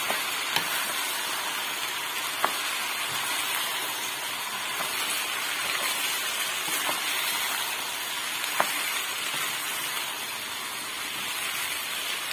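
Basmati rice and orzo sizzling in hot olive oil as they are stirred and toasted in a pan: a steady frying hiss, with a few sharp clicks from the stirring.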